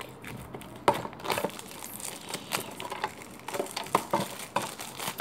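Plastic and foil wrapping of a Pokémon card pack crinkling and crackling as it is pulled open by hand, in irregular bursts of small crackles with a sharp snap about a second in.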